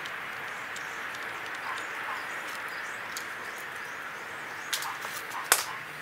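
Steady background hiss with a few sharp clicks, the loudest about five and a half seconds in, from small hardware being handled during a shifter bolt-up.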